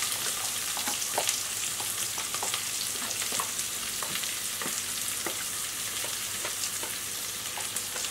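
Chopped red onions sizzling as they go into hot oil with whole spices, ginger and chilies: a steady frying hiss with scattered sharp ticks.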